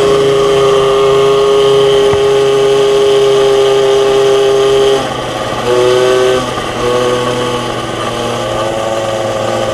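MBK 51 Magnum moped's two-stroke 50 cc engine running at steady high revs under way, heard from the rider's seat. About halfway through the throttle eases off and the revs drop, rise briefly twice, then settle at a lower, steady pitch.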